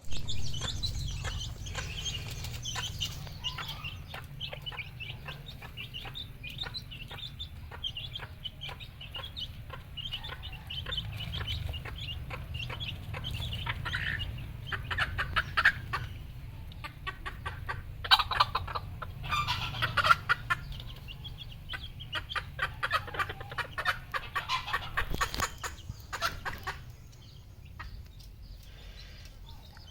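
A flock of red junglefowl clucking and calling in many short, overlapping notes, over a steady low hum; the calling gets louder and busier in the middle stretch and thins out near the end.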